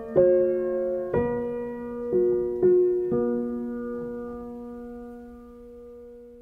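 Background piano music: a few slow chords, the last one, a little after three seconds in, left ringing and fading away.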